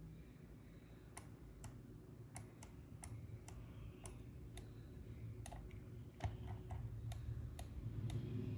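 Irregular, sharp clicks of a computer mouse, about a dozen and a half, some in quick pairs, over a low steady hum that grows louder near the end.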